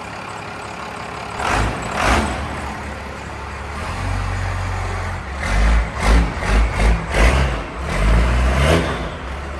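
Diesel pickup's Cummins engine, fitted with a fuel pin and governor springs, idling and being revved. It gives two short blips near the start, a longer pull, a quick run of about five short throttle blips, then a longer rev near the end.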